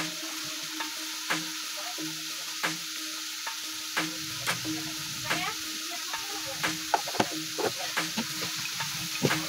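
Onion and tomato masala sizzling in hot oil in a blackened wok, with a spatula scraping and tapping against the pan as it is stirred. The taps come more often near the end.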